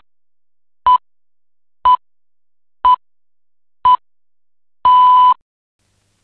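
Radio time signal: short high beeps exactly one second apart, ending in a longer final beep about five seconds in. This six-pip pattern marks the exact hour.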